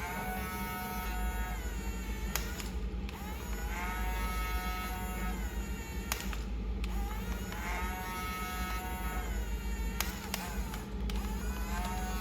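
Small electric motor of a toy RC excavator whining in repeated runs of about four seconds. Each run rises in pitch as it starts and then holds steady, with a click and a short break between runs, over a constant low hum.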